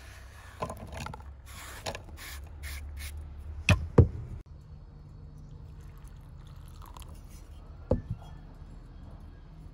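Wooden spatula stirring and scraping cooked ground meat in a frying pan, with two sharp knocks against the pan about four seconds in and another single knock near the end.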